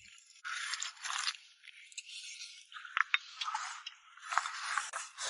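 Spoon scraping and clicking against a bowl as food is served at the table, with a few sharp clicks about three seconds in.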